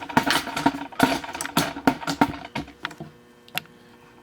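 Handling noise from a camera on its tripod being picked up and moved: a quick run of knocks, clicks and rattles for about three seconds, then one last click.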